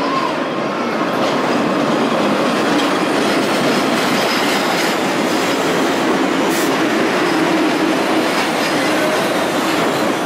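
MBTA Red Line subway train pulling into an underground station: a loud, steady rumble of steel wheels on rail echoing off the platform walls, with a faint wheel squeal.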